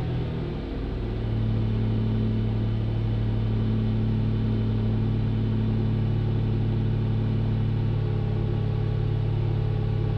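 Toyota 4Runner engine idling through a Flowmaster Super 40 exhaust, a steady low drone that settles down about a second in after a brief change in revs.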